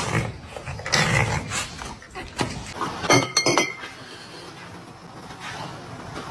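A few knocks, then a quick run of sharp, ringing clinks about three seconds in.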